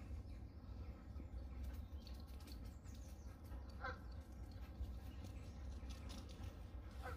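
Wind rumbling on the microphone beside a lake, with a short faint bird call about four seconds in and another near the end.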